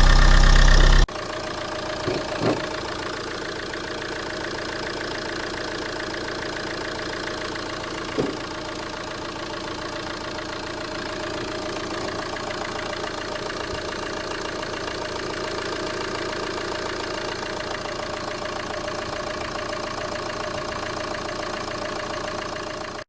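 Renault 1.9 dCi diesel engine running loudly just after its first start on a newly fitted injection pump. About a second in, the sound cuts to a quieter steady hum with a faint tone, broken by two short knocks.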